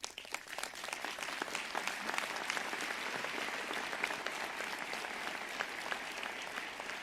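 A large audience applauding: a dense patter of clapping that swells in the first second, holds steady, and eases slightly near the end.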